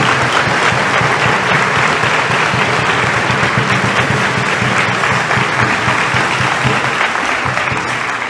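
A congregation applauding: dense, steady clapping from many hands that begins to die away near the end.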